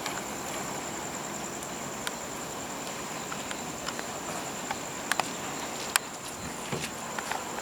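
Insects trilling on one steady high note, over a faint even hiss, with a few sharp clicks.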